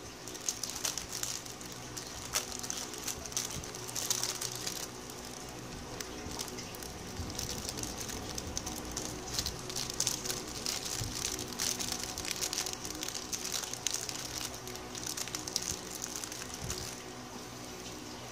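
Small clear plastic bag crinkling and rustling in the fingers as it is worked open, a dense run of small crackles.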